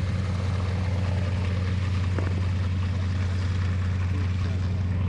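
Two Yakovlev Yak-52TW aircraft's nine-cylinder radial engines and propellers droning steadily in flight.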